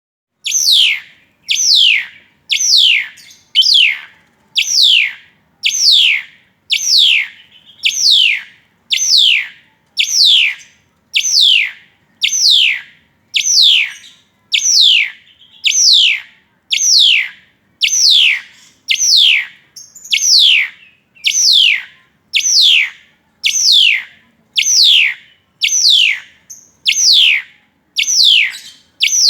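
Asian pied starling calling over and over: a high, clear whistle that sweeps steeply downward, repeated about once a second without a break.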